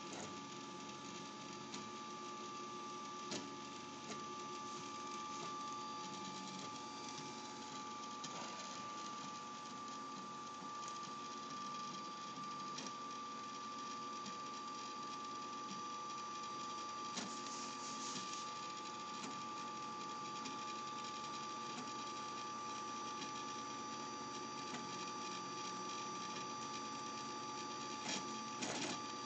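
3D printer's stepper motors running as it prints: a steady high whine with shifting lower tones as the head and bed move, and a few short clicks.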